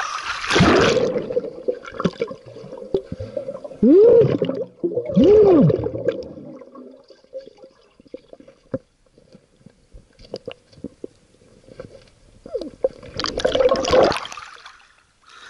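Water gurgling and bubbling with the microphone underwater, with a rush of water at the start and again near the end, two louder gurgling swells about four and five seconds in, and scattered small clicks in between.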